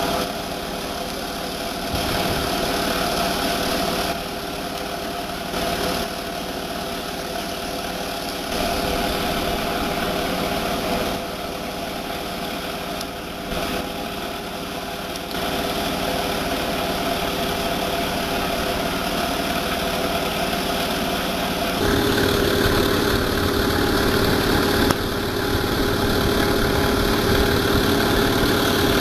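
Diesel engine of heavy earthmoving equipment running steadily, with sudden shifts in loudness and tone every few seconds. About two-thirds of the way through it becomes louder and deeper and stays so.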